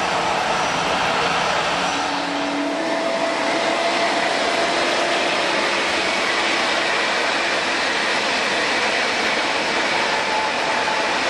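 Jet engines of a taxiing Boeing 777-200 airliner running at low power: a steady rushing roar with faint whining tones.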